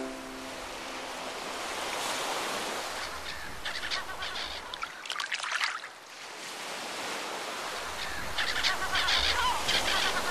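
Outdoor water ambience: a steady wash of moving water, with short splashy bursts a few seconds in and again near the end.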